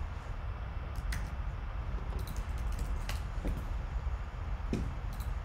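A few scattered keystrokes on a computer keyboard, sharp single clicks every second or so, over a steady low rumble.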